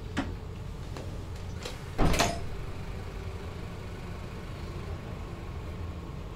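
A door bangs shut about two seconds in, with a short hiss after it, over the steady low hum of a VIRM electric train. A faint click comes just after the start.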